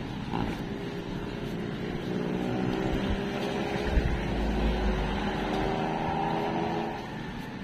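Street traffic: a motor vehicle's engine running close by, its pitch rising slightly, then fading near the end.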